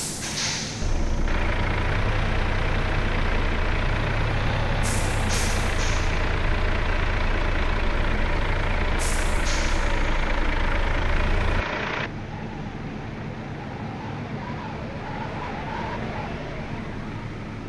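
Loaded truck's diesel engine pulling hard with a loud, steady low drone, broken by several short sharp air hisses from the truck's air system. At about 12 s the engine sound drops suddenly to quieter running, as if the throttle comes off.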